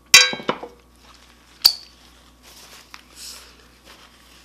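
Chopsticks and dishes clinking: a loud ringing clink right at the start with a second knock just after, then one sharp, high clink about a second and a half later.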